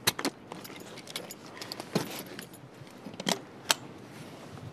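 Scattered sharp metal clicks and clinks of diving gear being fitted: the diver's suit fastenings and a hard-hat diving helmet being lowered onto him. A steady hiss runs underneath.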